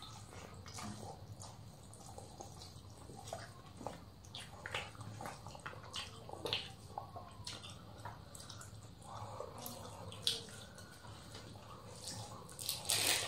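Close-up eating sounds: wet chewing and lip smacks, with the squelch of fingers mixing rice and curry, as short irregular clicks and smacks over a faint steady low hum. The loudest smack comes near the end.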